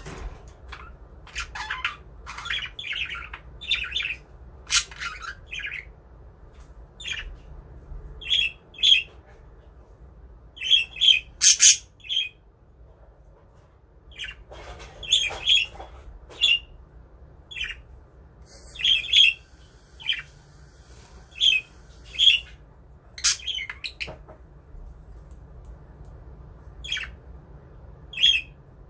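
A small flock of pet budgerigars chirping and squawking: many short, sharp calls, some overlapping, coming in clusters with brief quieter gaps.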